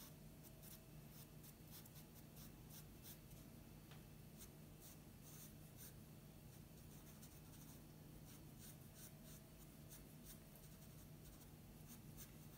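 Pencil scratching faintly on drawing paper in short, irregular strokes as the eyes are shaded in. A steady low hum sits underneath.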